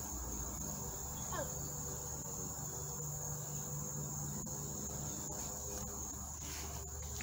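Crickets trilling in one steady, unbroken high-pitched chorus over a low steady hum, with a few faint clicks.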